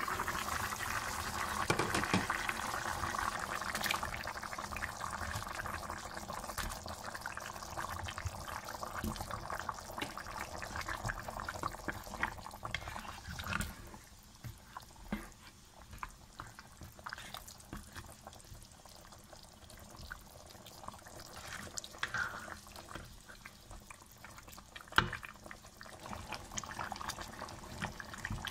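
Chicken and potato curry bubbling in a wok, with small pops and a spatula clicking and scraping against the pan as it is stirred. The bubbling hiss is loudest in the first few seconds after the lid comes off, and there is one sharp knock of the spatula on the pan near the end.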